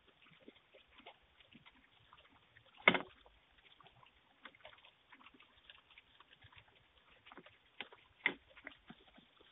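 Close-range knocks and rustles of a person handling things right at a doorbell camera, heard through its narrow-band microphone: scattered small clicks, with one sharp knock about three seconds in and another near the end.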